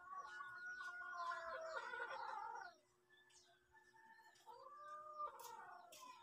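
An animal calling twice. The first is a long, wavering cry lasting nearly three seconds. The second, starting about four and a half seconds in, is shorter and rises then falls in pitch.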